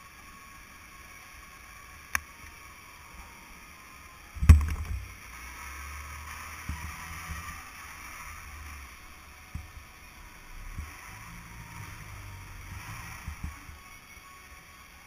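Electric go-kart pulling away and driving, a low uneven rumble through the kart-mounted camera. A sharp click comes about two seconds in, and a loud thump about four and a half seconds in as the rumble starts, with a few smaller knocks after.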